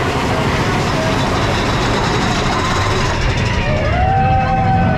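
Big Thunder Mountain Railroad mine-train roller coaster running along its track: a steady loud rush of wheels and wind. From about three and a half seconds in, riders whoop in long rising-and-falling cries.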